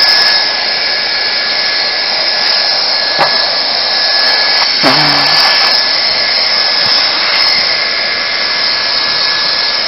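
Handheld hot-air plastic welder (heat gun) blowing steadily, a constant rushing hiss with a thin high whine, its slot nozzle melting the edge of an HDPE patch onto the liner as it is rolled down.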